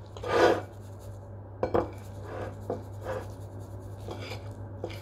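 Forks scraping and clicking on ceramic plates while grated cheese is shaken out of a paper packet, with a sharp pair of clinks a little under two seconds in. A steady low hum runs underneath.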